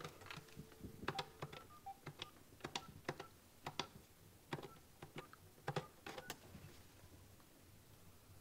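Number keys pressed one after another on a desk telephone's keypad as a phone number is dialed. It comes as a run of quiet clicks, about ten presses in close press-and-release pairs, stopping about six seconds in.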